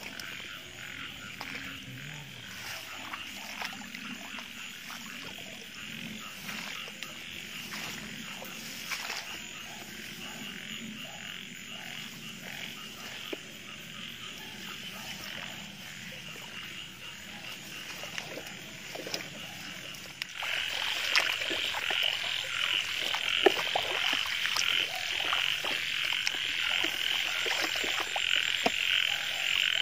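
A chorus of frogs croaking steadily, growing markedly louder about two-thirds of the way in, with scattered short rustles and clicks.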